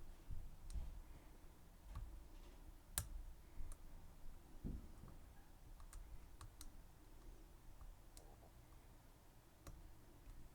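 Faint, irregular clicks of lock picks working the pins of a Schlage Everest 29 SL pin-tumbler lock cylinder, over a low handling rumble.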